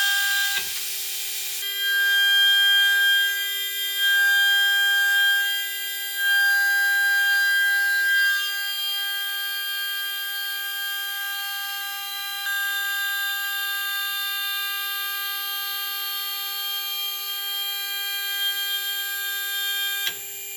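High-speed CNC spindle milling Inconel 718 with a ceramic end mill: a steady high whine made of several tones. It swells louder in a few stretches during the first eight seconds. There is a burst of hiss in the first second and a half, and a click near the end.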